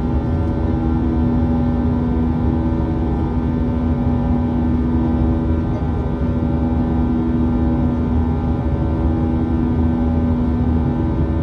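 Steady engine drone inside the cabin of an Airbus A320 airliner: an even hum with several steady tones over a continuous rush of noise, unchanging throughout.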